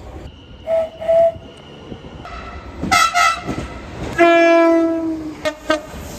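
Train horns sounding in a string of short toots, the loudest a single long blast of about a second some four seconds in, followed by two quick toots.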